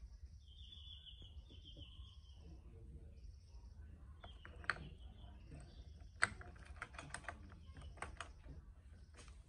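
Light metallic clicks and clinks of motorcycle clutch parts being handled and fitted: the pressure plate being set onto the clutch basket, with two sharper clicks near the middle followed by a run of lighter ticks.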